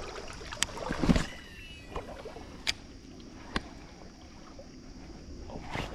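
Casting and reeling a topwater lure with a spinning rod and reel: a thump about a second in and a few sharp clicks, over soft running-water noise from the river.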